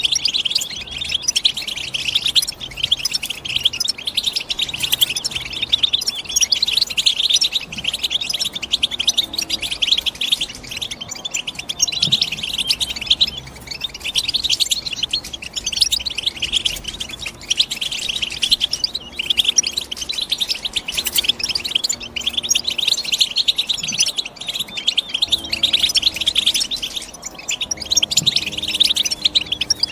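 European goldfinch singing: fast twittering chirps in long phrases broken by brief pauses.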